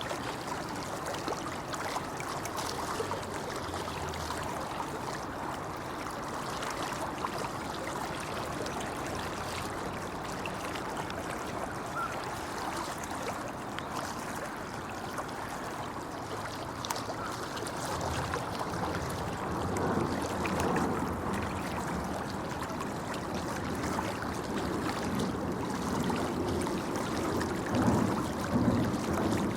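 Shallow river stream babbling steadily over rocks, a continuous rush of water that grows a little louder and fuller in the last third.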